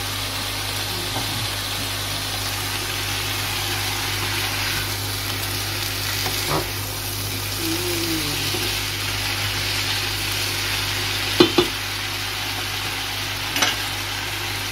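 Mixed vegetables sizzling as they fry in a little olive oil in a pan, stirred with a wooden spatula, over a steady low hum. A few sharp knocks sound about two-thirds of the way through and again near the end.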